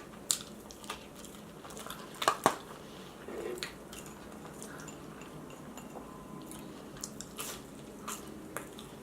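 Close-miked chewing and biting of food, with scattered sharp clicks; the loudest is a close pair about two and a half seconds in.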